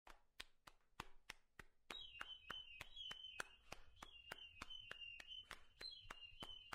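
Faint, evenly spaced ticking, about three clicks a second. About two seconds in, a high warbling tone joins it.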